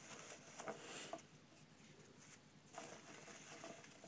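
Faint rustling of foam packing peanuts as a hand stirs and picks them out of a foam-lined shipping box, in a few short scratchy rustles, clearest about a second in and near three seconds.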